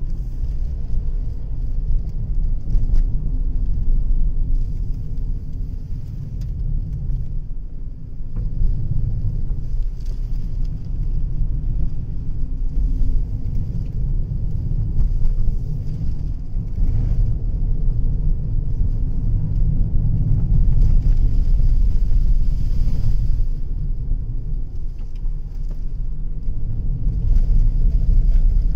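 Inside a moving car's cabin: a steady low rumble of the engine and tyres on the road surface.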